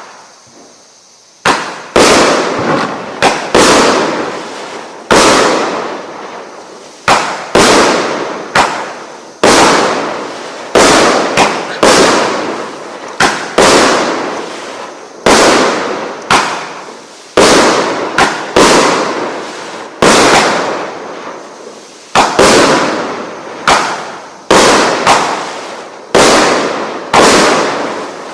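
A 25-shot consumer fireworks cake firing its shots one after another, about one a second and sometimes two in quick succession, starting about a second and a half in. Each shot is a sharp bang that fades away.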